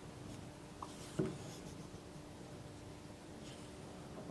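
Faint handling sounds of a hand vacuum oil-sampling pump and its plastic tube being worked over an oil drum: light scraping and rubbing, with a soft knock about a second in, over a steady low hum.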